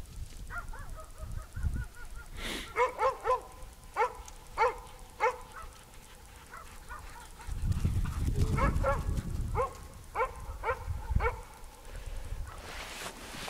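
A dog barking while playing: about a dozen short, high-pitched barks in quick bursts. A low rumble comes in partway through.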